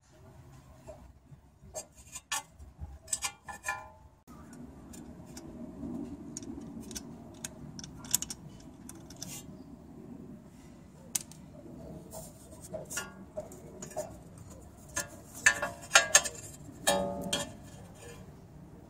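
Irregular metallic clicks and clinks of a hand tool working on the bolt of a car's ABS wheel speed sensor, and of the sensor being worked free of the hub. The clicks come in clusters, the busiest near the end, some with a short metallic ring.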